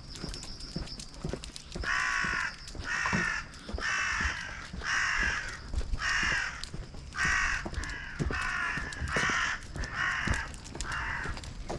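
A crow cawing over and over: about ten harsh caws roughly a second apart, beginning about two seconds in. A steady high, thin whine runs underneath.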